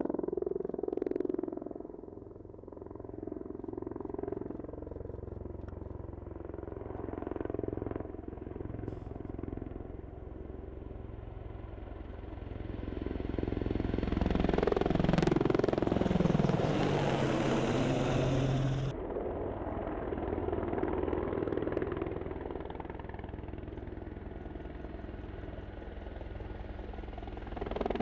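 Helicopter turbine engines and rotor running steadily. The sound swells louder from about 13 s in, with a high hiss that cuts off abruptly about 19 s in.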